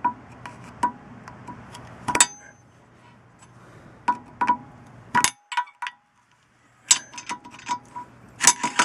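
Flathead screwdriver clinking and scraping against a wheel hub's metal dust cap as it is pried and turned loose: irregular sharp metallic clicks with a short ringing note. The loudest come about two and five seconds in, then a quick run of clicks near the end.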